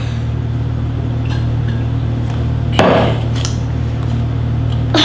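A glass mug knocking on a countertop as it is put down beside a drinking glass. There are a few light knocks and a louder clunk about three seconds in, over a steady low hum.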